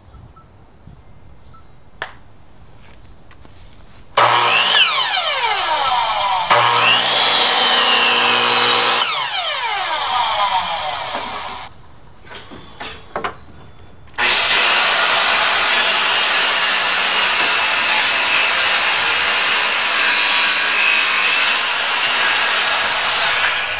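Electric miter saw cutting wedge-shaped wooden shims from a pine block, in two runs. The first starts about four seconds in, cuts, and winds down with a falling whine. The second is a longer, steady run of about nine seconds that stops near the end.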